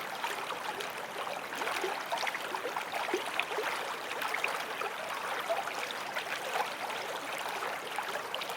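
A creek running over stones, a steady babbling and trickling full of small bubbling splashes.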